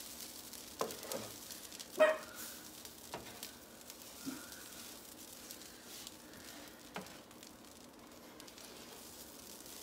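Shredded hash browns frying on a stovetop griddle, with a soft, steady sizzle. A few light clicks from a spatula against the pan come through, the loudest about two seconds in.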